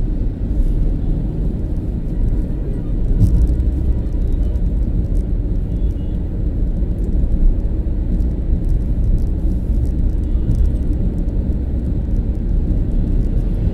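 Steady low rumble of a car's road and engine noise, heard from inside the cabin while driving at highway speed.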